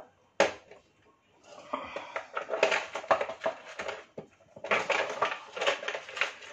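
Spatula scraping and clattering in an aluminium foil tray inside an air fryer basket as cooked potatoes are scooped out, in two busy stretches, with a sharp knock about half a second in.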